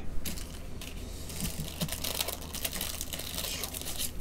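Stiff clear plastic card holders being handled, a run of small clicks and crinkling rustle that is densest from about a second in until near the end.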